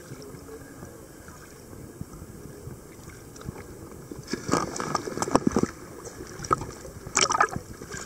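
Seawater sloshing and gurgling around a camera held at the surface in a waterproof housing. There are bursts of splashing about halfway through and again near the end.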